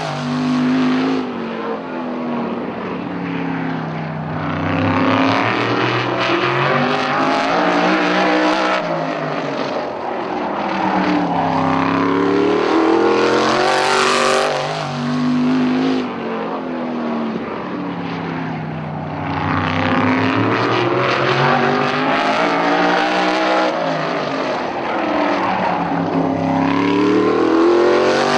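Sprint car's Corvette LS3-based V8 running hard laps: the engine note climbs as it accelerates out of the turns and drops as it lifts going in. It passes close and loud about every 14 seconds: at the start, halfway through and at the end.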